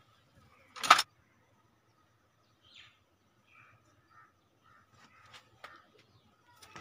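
Faint birds chirping in the background, with one loud, sharp knock about a second in and a few light clicks later on.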